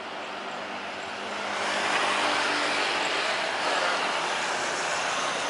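Boeing 737-800's CFM56 jet engines on the landing rollout, a broad rushing jet noise that grows louder about a second and a half in and then holds.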